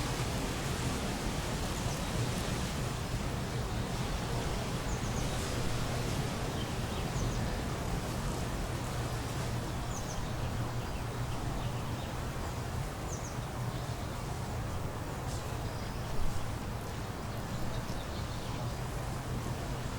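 Outdoor ambience: a steady hiss of background noise with a low hum underneath, and short high bird chirps now and then. A brief louder noise stands out about three-quarters of the way through.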